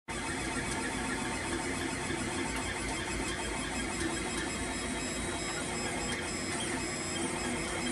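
Monoprice Select Mini 3D printer running mid-print: a steady whir and hiss of its fan, with the stepper motors humming and whining in slightly shifting pitches as the extruder head moves. The sound cuts in suddenly at the start.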